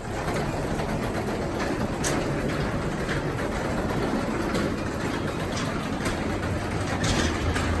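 Craftsman 3/4 horsepower belt-drive garage door opener running steadily as it closes an old garage door, the door creaking and clicking along its tracks now and then.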